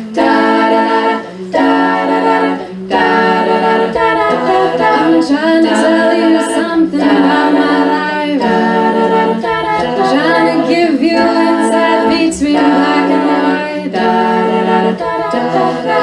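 All-female a cappella group singing, amplified through microphones: several layered voices hold and shift chords together, with brief breaks between phrases.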